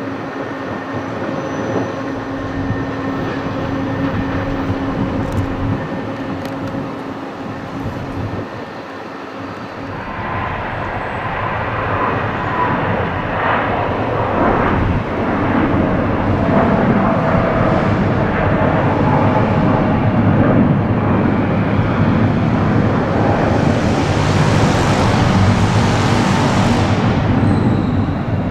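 Jet engines of a taxiing Airbus A300 freighter run at a steady low hum. From about ten seconds in, the much louder jet noise of an Airbus A320-family airliner at take-off thrust builds up and stays loud through its lift-off and climb, with a high hiss that fades near the end.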